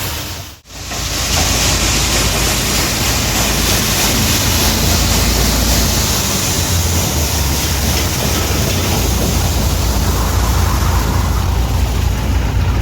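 Soybean threshing machine running loud and steady, a continuous rush of machine noise with no distinct rhythm. It cuts out briefly under a second in.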